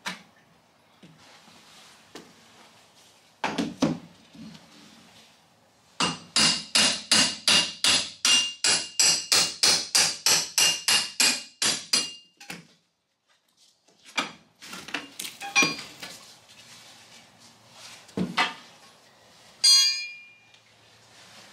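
Hammer driving a pry bar behind a baseboard to take it off: a run of about two dozen quick, ringing metal strikes, about four a second for some six seconds. Scattered knocks follow, then a short metallic clink near the end.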